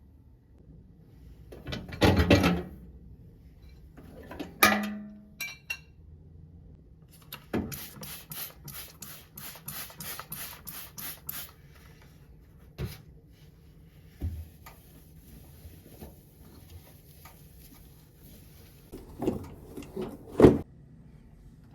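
Kitchen cleaning sounds. There is a clatter, then a knock with a brief ringing. A run of quick rubbing strokes follows, about four a second, and a couple of knocks come near the end.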